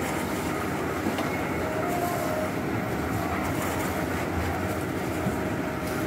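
Portable concrete mixer running steadily, its engine and turning drum making a continuous rumble, with a few faint clinks from shovels working gravel.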